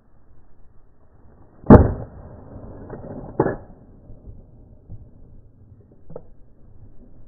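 Two shotgun shots fired at thrushes in flight, heard slowed down in slow-motion playback. The first, about two seconds in, is the louder; the second follows about a second and a half later.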